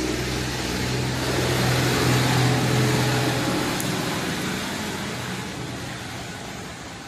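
A motor vehicle passing by: engine and road noise swell to a peak a couple of seconds in, then fade away.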